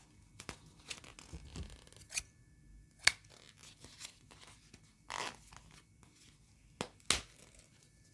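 Scissors cutting a paper label off a faux fur sheet, with the paper and fur being handled: a few separate sharp snips and crinkles, the loudest about three seconds in, and a short rustle about five seconds in.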